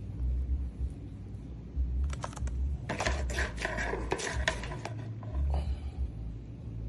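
Kitchen handling noises: a few light clicks, then about two seconds of crinkling and scraping, over a low background rumble.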